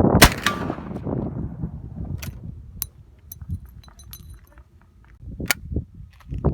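Martini-Henry rifle: one sharp crack about a quarter-second in, with a second crack just after it. Then a scattering of light metallic clicks and clinks.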